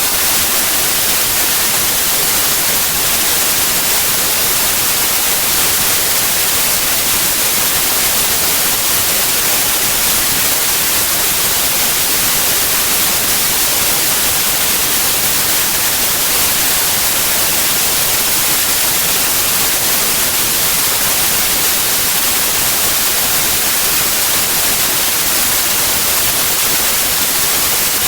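White noise: an even, unchanging hiss, strongest in the highs.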